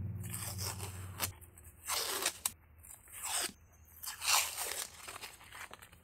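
Masking tape being ripped off a plastic box mould in a series of short tearing pulls, about one every second.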